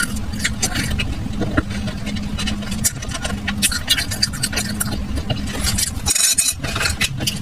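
Close-miked chewing of sticky dried tamarind pulp, with many irregular wet mouth clicks and smacks. A steady low hum runs underneath.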